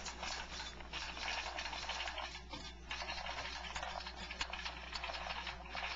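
Irregular rattles and clicks over a steady hiss as a heavy timber hanging from chains is handled and lowered into position.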